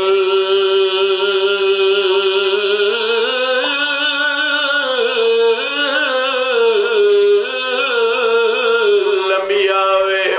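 A man singing a religious recitation into a microphone in long, drawn-out held notes, his pitch wavering and rising and falling between phrases.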